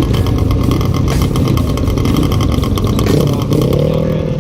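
Motorcycle engine running with a steady, rapid pulse; near the end, a second engine note rises in pitch and then holds.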